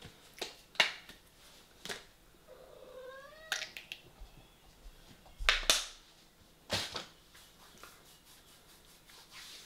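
A domestic cat gives one rising meow about three seconds in. Around it come short clicks and sputtering squirts from a squeezy ketchup bottle being opened and squeezed; the loudest comes about halfway through.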